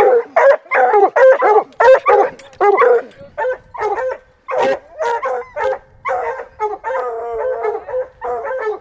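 Treeing walker coonhounds baying, a fast run of short barks mixed with longer drawn-out bawls.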